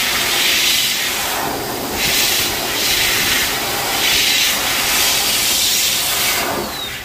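High-velocity dog-grooming blower running: a loud, steady rush of air from its hose and cone nozzle, aimed at a bare forearm, swelling and easing slightly as the nozzle moves. Near the end the motor's whine falls away and the rush dies down as the blower is switched off.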